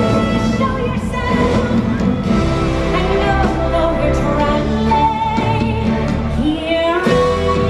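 Music with singing: a sung melody with held and gliding notes over an instrumental backing.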